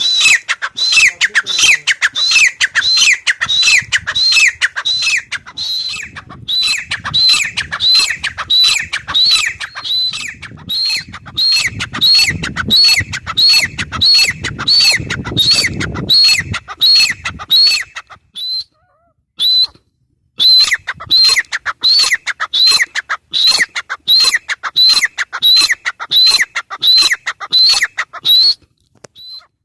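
Grey francolin calling: a fast, loud series of shrill repeated notes, about three a second, pausing briefly twice.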